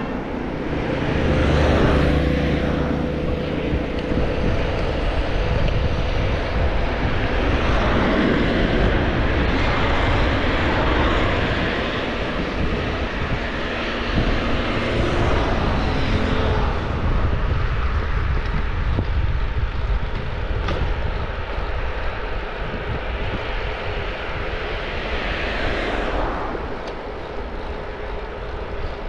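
Wind rushing and buffeting over the camera microphone while an e-bike is ridden at about 25 km/h, mixed with tyre noise on the road.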